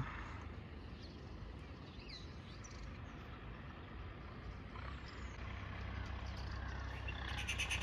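Outdoor ambience: a low, steady rumble with a few faint bird chirps; the rumble grows a little louder about five seconds in.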